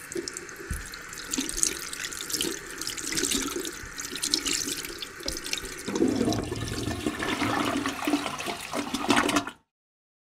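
Water rushing and splashing, with a change in its character about six seconds in, then cutting off abruptly near the end.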